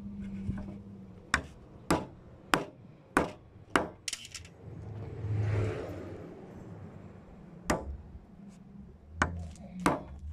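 Hammer blows on a wood chisel, cutting notches into a wooden stair stringer: five sharp strikes about half a second apart, a short noisier stretch in the middle, then one more blow and a quick run of three near the end.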